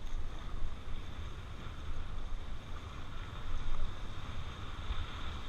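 Steady rushing of river water, with wind buffeting the microphone as a low, uneven rumble.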